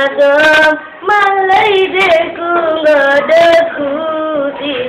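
A young girl's solo voice chanting a melodic recitation, unaccompanied, in long held and gliding phrases with a short breath about a second in.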